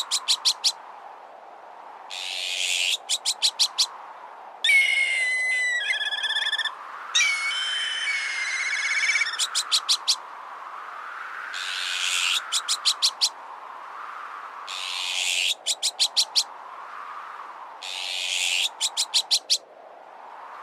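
Mixed bird-deterrent sound effects: about every three seconds a short hiss burst is followed by a rapid rattle of four or five sharp clicks, over a whooshing wind that swells and fades. Around the middle come two harsh bird calls, each made of several held pitches.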